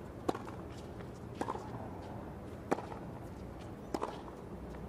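Tennis ball struck by rackets in a baseline rally: four sharp pops about a second and a half apart, over a low steady background.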